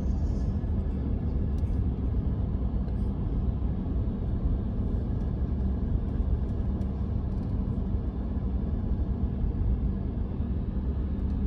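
Steady low rumble of a truck driving: engine and road noise holding even, with no sharp events.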